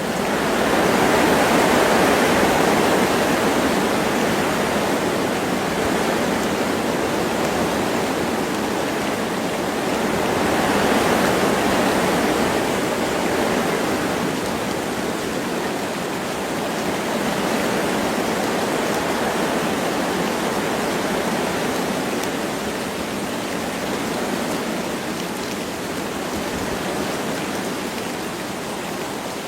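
Wind rushing through forest trees with light rain falling. It swells in gusts, strongest about a second in and again around eleven seconds, then settles into gentler rises and falls.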